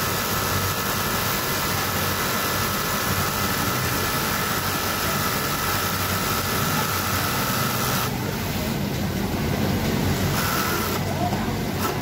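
Brother twin-needle industrial lockstitch sewing machine running steadily while topstitching a waistband, its motor whine over the hum of a garment factory floor. The whine drops away about two-thirds of the way through, coming back briefly near the end.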